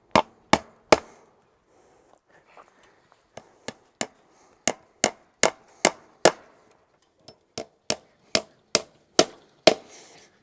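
Hammer blows driving fence staples into a wooden fence post to fix the tensioned field fence wire. The sharp strikes come in runs of a few at a time, about two or three a second, with short pauses between.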